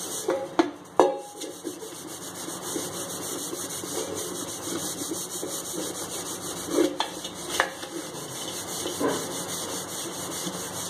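Metal scrub pad scouring the tarnished outside of a copper jug with citric acid and salt, a continuous gritty rubbing. A few sharp knocks come about a second in and again near seven seconds.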